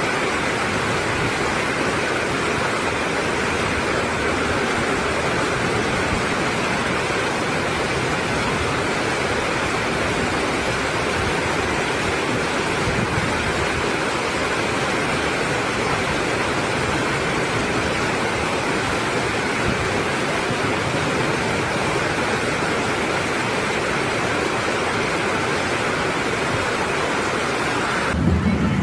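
Torrential rain pouring down with floodwater rushing along a street, a steady, even wash of water noise that cuts off near the end.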